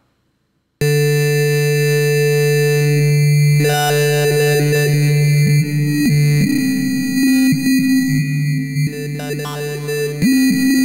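The 'Yaya' dubstep synthesizer preset in Ableton Live playing loud held notes. It starts about a second in and changes pitch a few times.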